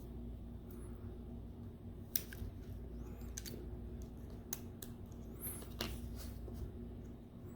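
A few light, sharp clicks and ticks of small tools and parts being handled during a tablet charging-port repair, over a low steady hum.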